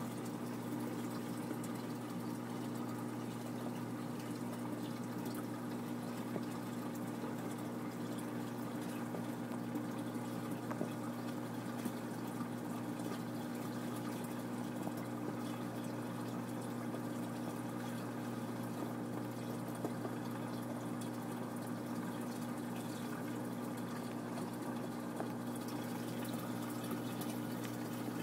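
Saltwater aquarium sump running: steady trickling and splashing of water, with a constant hum from the pump underneath.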